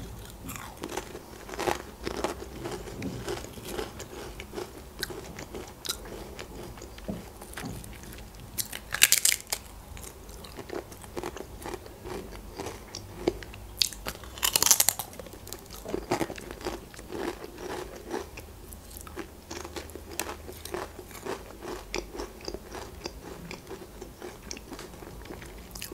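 Close-miked biting and crunching of Pringles paprika potato crisps, with loud crisp bites about 9 and 15 seconds in and a steady crackle of chewing between.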